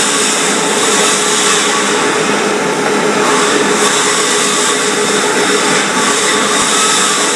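Iron Horse Machine Works 3015 planetary concrete floor grinder running steadily while stripping carpet glue, with the carpet backing still stuck in it, off a concrete floor, with no added weight on the head. A loud, even grinding noise with a constant motor whine.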